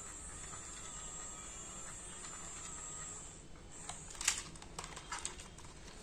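Small battery-powered electric gear motor of a wired-remote toy shovel loader whining steadily as it drives the plastic boom arm, stopping a little past halfway. A quick cluster of sharp plastic clicks and clatter follows.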